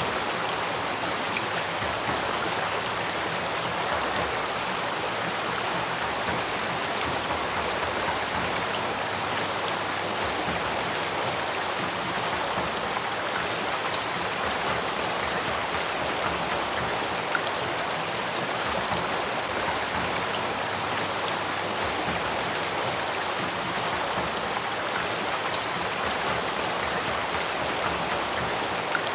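Headwaters stream flowing with a steady, unbroken rush of water.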